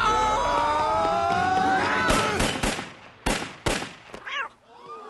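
Five sharp pistol shots over about a second and a half, fired at a rat, after two seconds of sliding pitched musical tones. A short falling squeak follows the shots.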